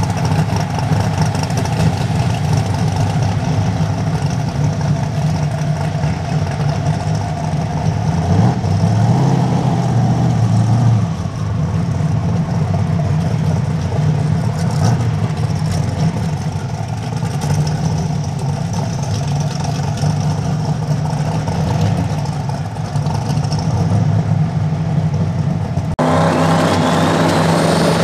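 Twin-turbo Mustang drag car engine idling loudly and lumpily, briefly rising about eight seconds in. Near the end it cuts abruptly to a fuller, steadier engine note.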